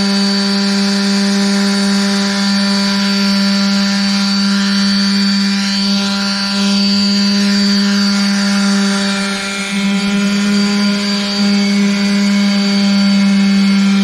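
Electric power sander running steadily, sanding down a hardened epoxy wood-filler patch, with an even motor hum under the hiss of the pad on the surface.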